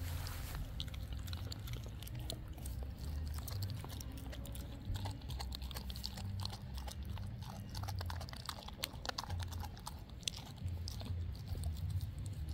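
Dog eating raw meat (lamb shank and ground beef over mashed yams): wet chewing and biting with many irregular sharp clicks and crunches.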